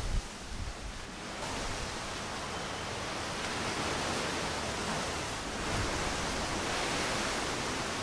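Strong wind blowing through a leafy tree canopy: a steady rustle of leaves that swells in gusts, rising about a second and a half in and again around six seconds.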